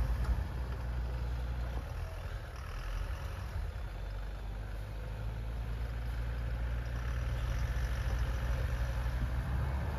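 Four-wheel-drive vehicle engine idling steadily during a winch recovery on ice.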